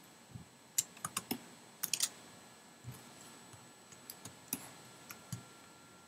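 Faint, irregular clicks of computer keyboard keys and mouse buttons, some coming in quick runs of two or three.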